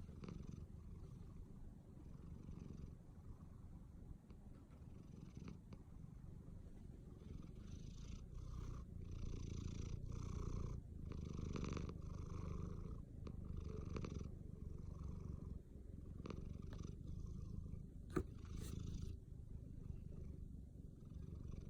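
American Shorthair cat snoring in its sleep: a steady low rumble with a breathy rasp on each breath, about once a second, louder through the middle. A single sharp click near the end.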